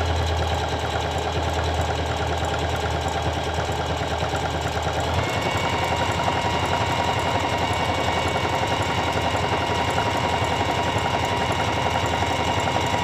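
SINGER CP6350M electric sewing machine running steadily as it sews a feather stitch through fabric, its needle working continuously. Its sound changes a little about five seconds in.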